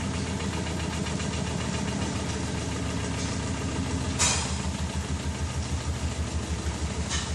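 Consul CWH12 12 kg washing machine in its final spin: a steady motor hum. About four seconds in there is a brief hiss, after which the hum turns to an uneven pulsing.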